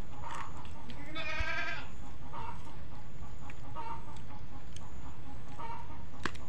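An animal's drawn-out, wavering call about a second in, with a few short, fainter animal calls scattered through, over steady low background noise.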